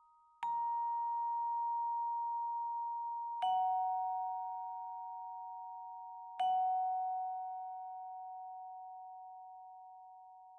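Computer-generated bell tones from a Max/MSP tintinnabuli-style patch. Three notes are struck about three seconds apart, each ringing on and slowly fading. The later, lower notes sound over the still-ringing higher tone.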